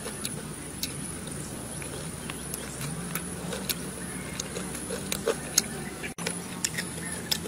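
Eating sounds: crispy fried chicken being chewed, with scattered sharp crunches and lip smacks.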